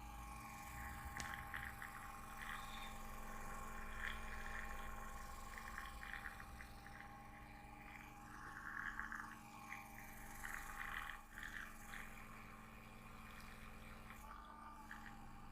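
Hands rubbing and kneading skin in a massage: soft, irregular rubbing strokes over a steady background hum.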